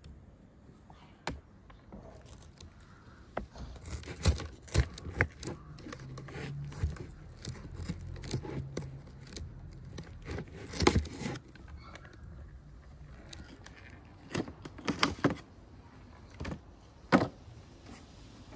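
Knife cutting through and scraping along a rack of raw beef ribs, with scattered irregular clicks and knocks of blade, meat and bone against the wooden board and tray.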